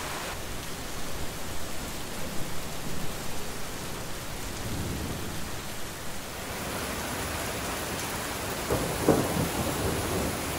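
Heavy rain pouring down steadily in a thunderstorm, with low rumbles of thunder about halfway through and again near the end.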